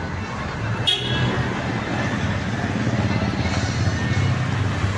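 Street traffic noise, with motorbike and scooter engines running among passing vehicles, and a short high-pitched beep about a second in.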